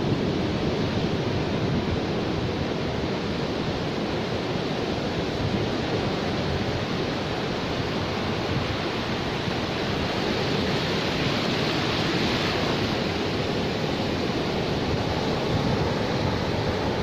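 Ocean surf breaking and washing up a flat sandy beach: a steady rushing wash of foam and water that swells a little about two-thirds of the way through.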